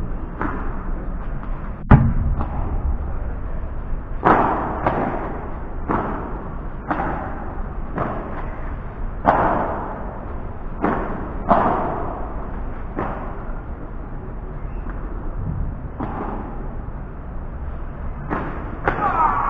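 Padel rally: sharp pops of the ball off solid padel rackets and bouncing off the court and walls, a hit every half second to a second, each ringing briefly, with a loud crack about two seconds in and a short lull past the middle. A steady low rumble runs underneath.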